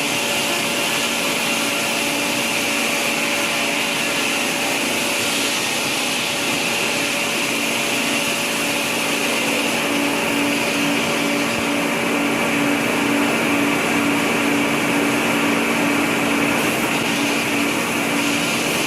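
A motor-driven machine running at a steady speed: a continuous rushing noise with a constant hum and whine that stays level throughout.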